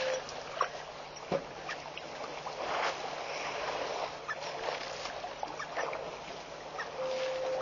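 Elephants drinking and wading at a waterhole: water splashing and sloshing, with scattered sharp splashes and knocks over a steady hiss. About seven seconds in, a steady flat tone sounds for about a second.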